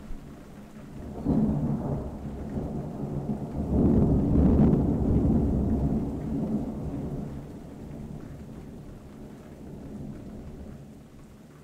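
Rolling thunder from a thunderstorm: a low rumble starts about a second in, swells to its loudest around four to five seconds, then slowly fades away, with rain falling throughout.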